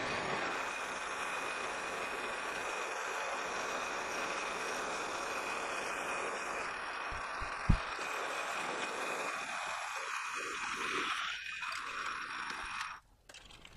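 Metal lathe turning at slow speed while a 5/8-inch twist drill in the tailstock chuck bores into the workpiece, peeling off long spiral chips. It is a steady running and cutting noise with one short knock about halfway, and it cuts off near the end.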